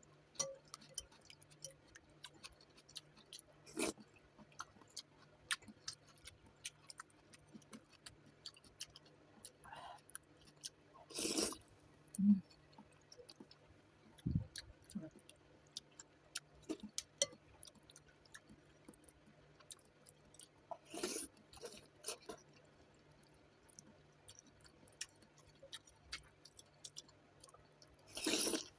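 Close-up eating of noodle soup: chewing and lip smacks make many short, sharp clicks, and three longer slurps of noodles or broth are spread through.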